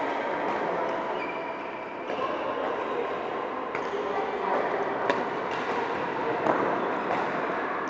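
Badminton rackets striking shuttlecocks in a rally: several sharp clicks a second or more apart, over a steady chatter of many voices.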